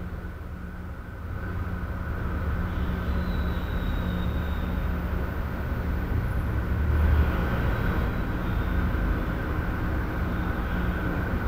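Residential room tone: a steady low rumble with a faint hum. It grows a little louder about a second and a half in and swells briefly around seven seconds.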